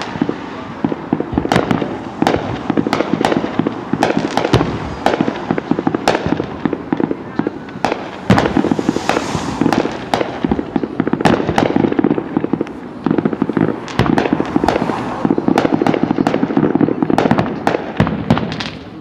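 Aerial fireworks bursting in a dense, unbroken barrage: loud bangs and crackles, several a second, over a continuous rumble.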